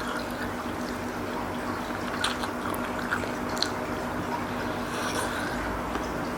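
Close-up wet chewing and small mouth and utensil clicks of someone eating seblak, over a steady background hum.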